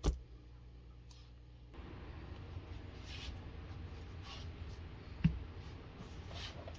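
Quiet handling of RC truck wheels and plastic parts by hand: a sharp knock at the start and another about five seconds in, with a few soft rubbing scrapes between, over a low room hum.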